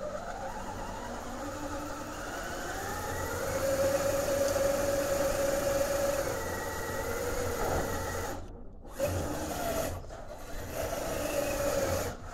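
RC crawler's brushed 550 electric motor and gear drivetrain whining under throttle, the pitch rising and falling as the throttle changes. It cuts out abruptly twice about two-thirds of the way through, then picks up again.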